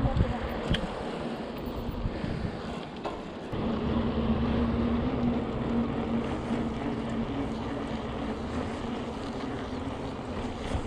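Riding noise from a bicycle on the move: a continuous rushing rumble of wind and rolling tyres. A steady low hum comes in about three and a half seconds in and holds.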